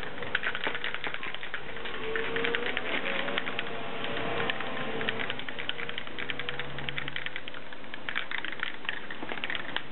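Aerosol spray can of Plasti Dip being shaken hard, its mixing ball rattling inside in quick, uneven clicks as the coating is mixed before spraying.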